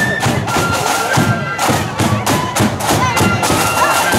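Marching flute band playing: many flutes sounding a melody together in held high notes, over a steady beat of drums.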